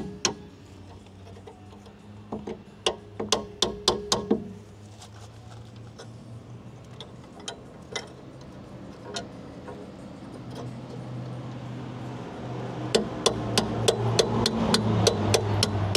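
A hammer tapping a chisel to drive the brake line's retainer clip out of its bracket. A quick run of sharp taps comes a few seconds in, then a few scattered ones, then a steadier series of taps, about three or four a second, near the end.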